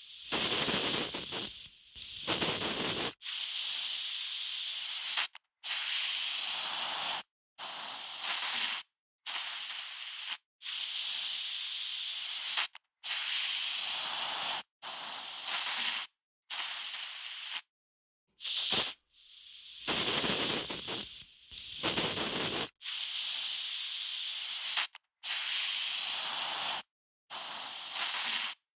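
Aerosol spray can spraying in repeated short bursts, each a hiss of one to two seconds cut off by a brief silence. A few of the bursts start softly and build up.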